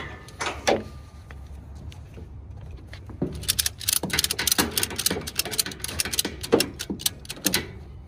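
A single knock near the start, then a ratchet strap's metal buckle clicking rapidly and unevenly as the webbing is pulled through and tightened to tie a tire down on a trailer.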